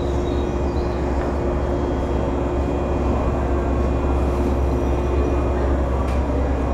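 Steady running hum of stationary JR West 223-series electric trains standing at the platform: a low rumble with a steady electrical tone that stops about five and a half seconds in.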